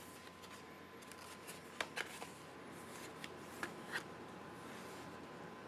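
A paper mailer card being handled, with faint rustling and a few light clicks over a low steady hum.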